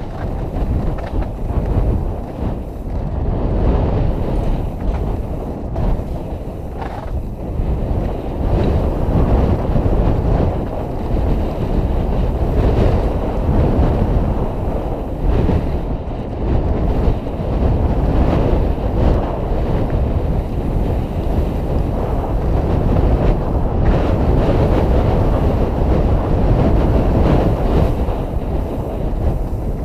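Wind buffeting the microphone and tyres rumbling over a dirt trail as a mountain bike rides down the trail, a steady loud rush with no pauses.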